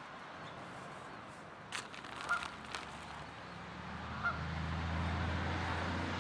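Quiet outdoor background with a few faint clicks, then the low hum of an engine building from about three and a half seconds in, as of a vehicle approaching.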